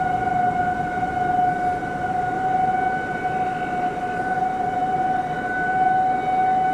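Outdoor tornado warning siren sounding one steady, held tone, with a rushing noise underneath.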